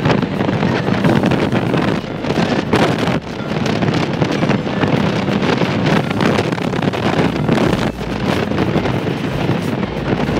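Loud wind buffeting the microphone from a moving vehicle, over the running of the vehicle and its road noise.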